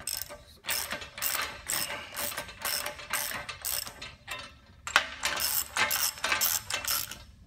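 Ratchet socket wrench clicking in quick back-and-forth strokes as the nuts on a reverse osmosis column's stainless top plate are run down and snugged, not torqued. There is a short pause a little past the middle before the strokes resume.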